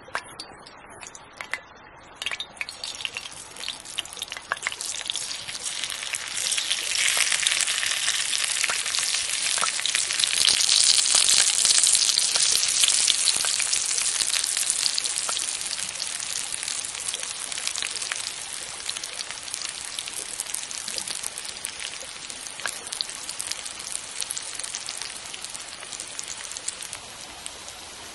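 Food frying in a hot pan over a campfire: a crackling sizzle that builds in the first few seconds, is loudest around the middle, then settles to a steadier sizzle.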